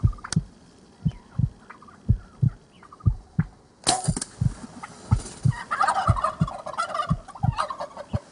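Wild turkey gobblers fighting and calling, with a loud gobble in the second half. Under them runs a heartbeat-like double thump about once a second.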